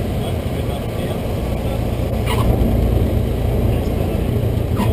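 Cessna 152's four-cylinder Lycoming engine and propeller running steadily, heard from inside the cabin as the plane rolls along the runway. It grows a little louder about two seconds in, and there are two short clicks, one midway and one near the end.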